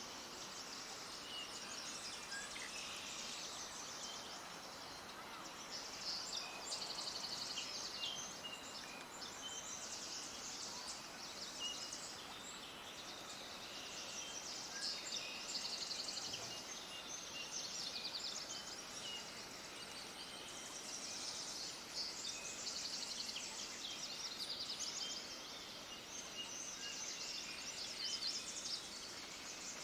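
Many small birds chirping and twittering at once in a dense, unbroken high-pitched chorus over a steady background hiss.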